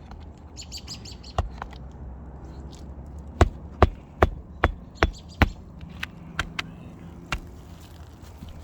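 A hammer driving a roofing nail through an asphalt shingle: one tap, then a quick run of six sharp strikes, then a few lighter taps.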